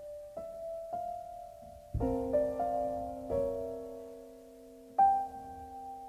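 Background music: slow, soft piano, single notes and chords that ring and fade, with a fuller chord about two seconds in.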